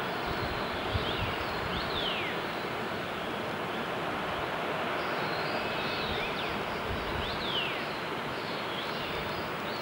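Steady rush of a mountain waterfall, with a bird giving thin, high, downward-sliding whistled calls over it, a few about two seconds in and a longer run of them from about five to eight seconds in.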